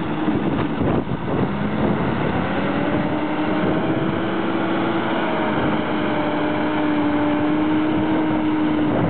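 Tractor engine running steadily while pulling a plough through dry ground, a constant drone that shifts only slightly in pitch.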